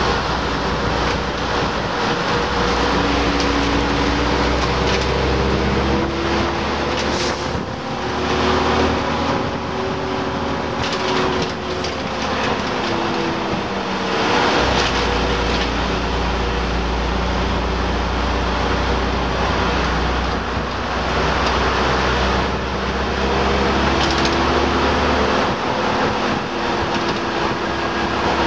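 Leyland Olympian three-axle double-decker bus's diesel engine heard on board, its pitch climbing and dropping back several times as it changes up through the gears while the bus picks up speed, over steady road and wind noise.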